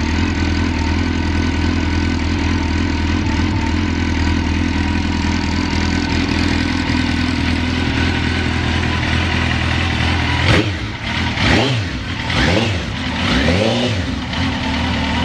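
Suzuki GSX-R1000 inline-four engine idling steadily. From about ten seconds in it is revved in a series of quick throttle blips, each rising and falling back, and then it settles back to idle.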